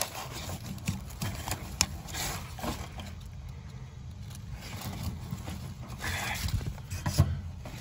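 Gloved hand rustling and knocking against wiring and sheet-metal panel inside an outdoor AC condensing unit's electrical compartment, with a few sharp clicks, over a steady low hum.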